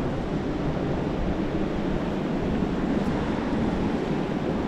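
Ocean surf washing steadily, with wind noise on the microphone.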